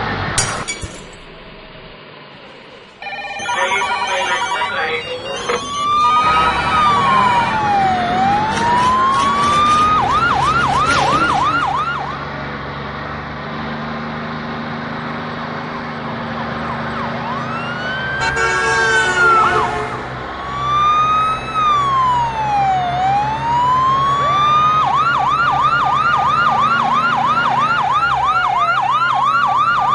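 Emergency-vehicle siren alternating a slow rising-and-falling wail with a rapid yelp, over a steady engine hum; a short pitched blast sounds a little past halfway.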